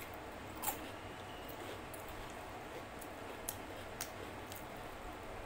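Close-miked eating sounds from hand-eaten rice and curry: chewing and wet mouth clicks, with one sharp smack about half a second in and two smaller clicks a few seconds later, over a steady low hiss.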